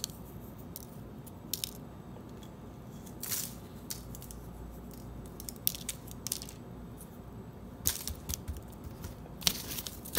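Salt being sprinkled onto a raw salmon fillet on paper: scattered quiet ticks and crackles, with a few louder clicks in the middle and near the end.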